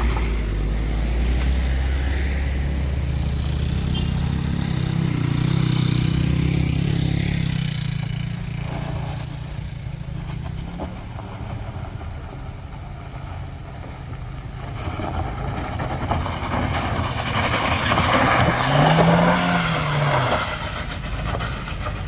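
Heavy diesel vehicle engines running on a steep road climb: a steady low engine drone for the first several seconds, then a louder vehicle passing near the end, its engine briefly rising and falling in pitch.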